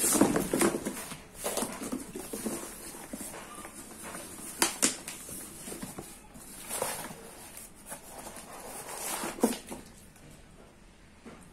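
Cardboard box flaps and packing paper being pulled open by hand, irregular rustling and crinkling with a few sharper crackles, fading out near the end.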